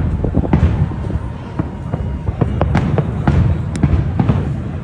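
Fireworks going off: a rapid, irregular string of sharp bangs and crackles over a continuous low rumble.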